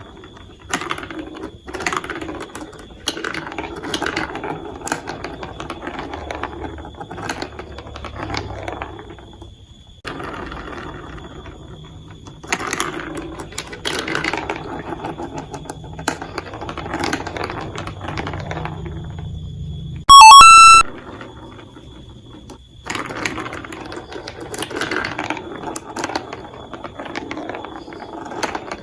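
Marbles rolling and rattling down plastic marble-run tracks, a steady clatter of small clicks that comes in stretches with brief lulls. About twenty seconds in, a loud, short two-note chime cuts in.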